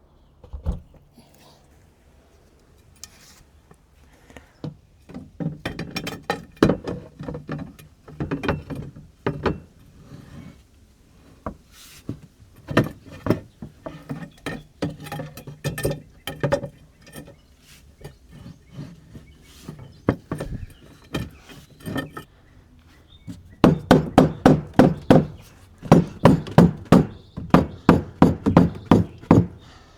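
Bursts of rapid, hard knocks, several a second, most dense and regular in the last quarter: strikes on the cap of a Jandy cartridge pool filter as it is worked tight.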